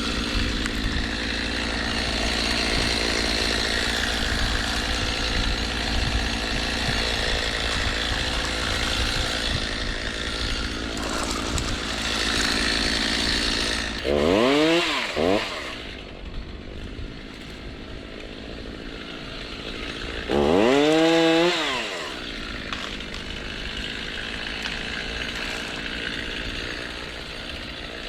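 Gasoline chainsaw cutting into a tree trunk under steady load for about the first half, then idling between two brief throttle revs, each rising and falling in pitch.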